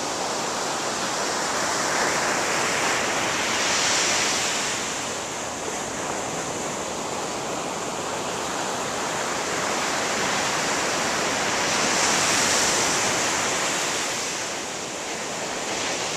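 Surf breaking on a sandy beach: a continuous wash of water that swells twice as waves break and rush up the sand, then eases back.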